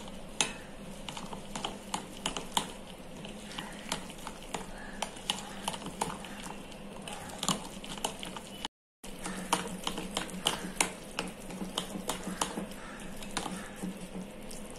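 Steel spoon stirring thick semolina, curd and green-pea batter in a glass bowl, clicking and scraping against the glass many times over a low steady hum. The sound cuts out for a moment a little past halfway.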